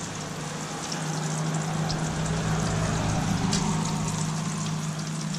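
Tofu frying in vegetable oil in a pan: a steady sizzle with scattered crackles over a steady low hum, growing louder about a second in.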